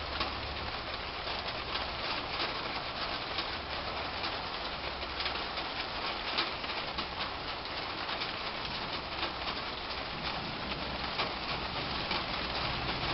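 Steady rain falling on garden foliage, a dense patter of drops, with a dove cooing in the background.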